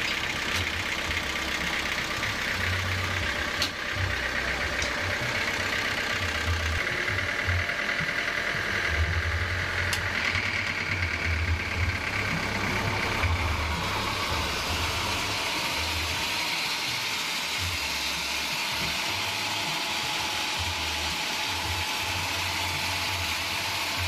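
Sawmill drive engine running steadily, turning the bandsaw through a bank of V-belts, with an uneven low throb that eases about two-thirds of the way through.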